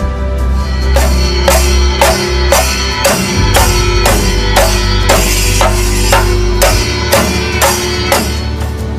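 Background music with a steady drum beat, about two strikes a second over a held bass, starting about a second in and fading out near the end.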